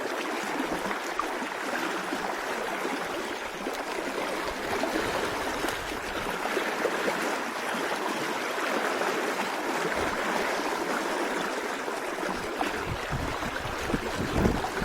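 Fast mountain river rushing over its rocky bed: a steady, even water noise. A few low thumps near the end.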